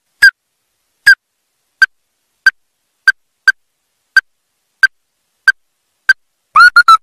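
Ruddy-breasted crake calling: about ten short, sharp single notes, roughly one every two-thirds of a second, breaking near the end into a quick run of notes.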